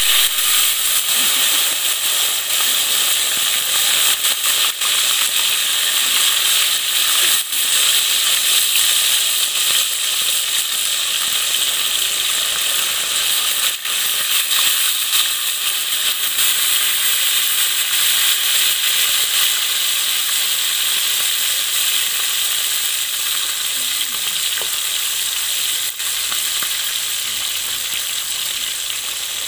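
Food frying in hot oil in a pan, a loud, steady sizzle with a few faint clicks throughout.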